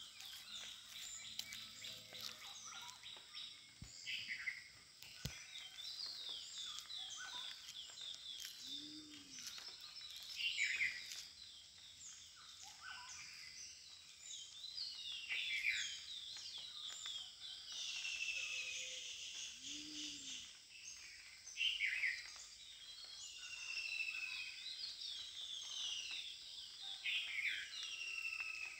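Many birds chirping and twittering together in quick, overlapping calls. Twice, about nine and twenty seconds in, a short low call rises and falls beneath them.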